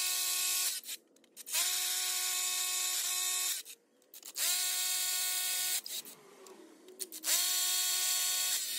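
FLEX cordless rotary hammer drilling through a board into a concrete wall, running as a steady high whine in four bursts with short pauses between them. Each restart rises quickly in pitch before it settles.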